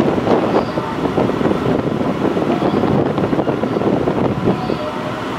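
Wind buffeting the microphone on the open deck of a moving car ferry, over the ship's steady running noise.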